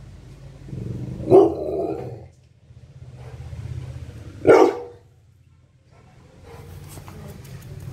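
A nine-month-old rottweiler barks twice, about three seconds apart.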